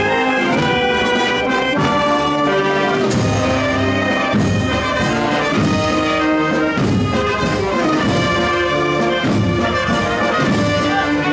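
Brass band playing a processional march, trumpets and trombones carrying long held notes over a low brass line.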